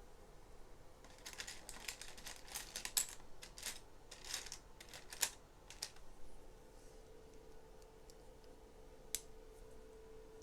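Plastic Lego Technic pieces clicking and clattering in a quick run of small clicks for several seconds, then one sharper single click near the end.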